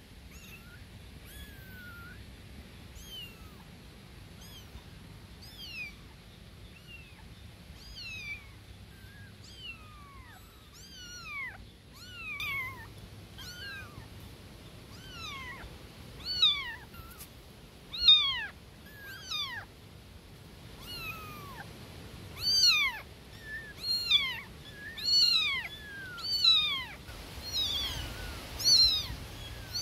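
Newborn kittens meowing loudly for their mother cat: repeated short, high-pitched mews that fall in pitch, few and faint at first, then coming faster and louder from about halfway on.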